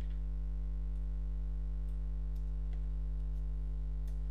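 Steady low electrical mains hum in the recording, with a few faint clicks over it.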